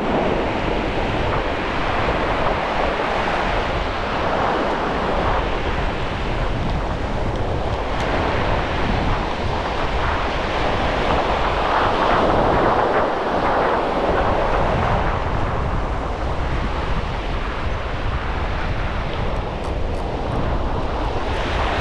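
Steady wash of surf breaking on a wide, flat sandy beach, swelling and easing gently, with wind buffeting the microphone.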